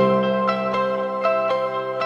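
Instrumental background music: a gentle melody of plucked notes over held tones.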